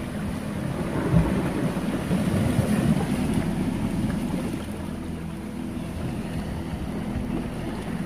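Sea water washing and splashing among shoreline rocks, with wind rumbling on the microphone. There is a short bump about a second in.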